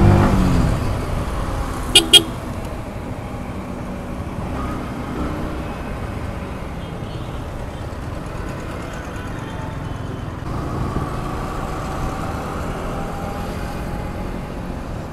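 Street traffic with a vehicle engine running, and a horn tooting twice in quick succession about two seconds in.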